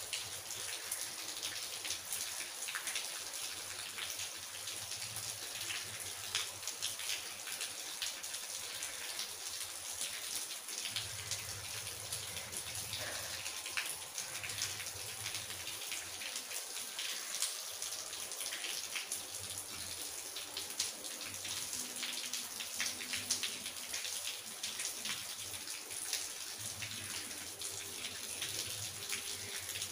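Tap water running steadily into a wash basin.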